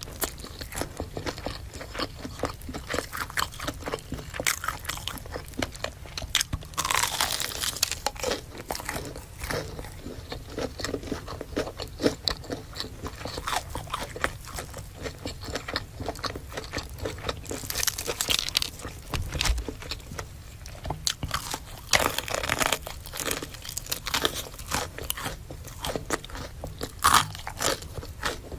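Close-miked eating: crisp bites and crunchy chewing of fried food, with wet mouth clicks between. The louder crunching bursts come about a quarter of the way in and twice in the second half.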